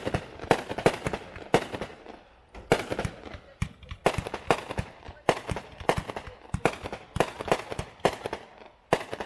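Consumer multi-shot firework cake (Hot Fireworks' Show Starter) firing shot after shot: a rapid string of sharp bangs, about two to three a second, as the shells launch and break overhead.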